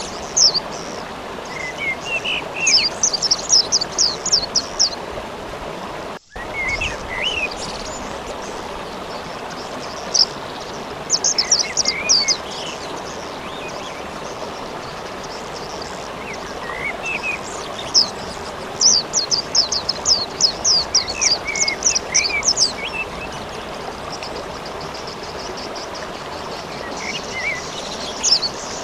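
Steady hiss of rain with a songbird singing over it: bursts of rapid, high trilled notes lasting about two seconds each, heard several times, with lower chirps between. The sound cuts out for a split second about six seconds in.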